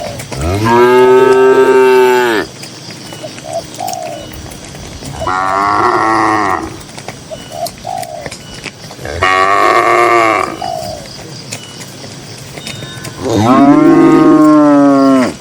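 Cattle mooing: four long moos about four seconds apart, each lasting one to two seconds.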